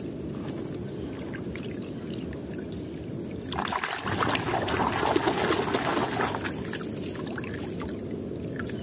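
A hand splashing and churning water in a plastic tub, swelling to a vigorous splashing about halfway through that lasts a few seconds before settling. A steady low background rumble runs underneath.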